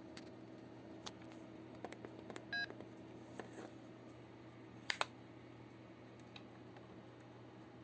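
LG C1300 mobile phone being handled: scattered soft clicks with one short keypad beep about two and a half seconds in, and a louder double click near five seconds.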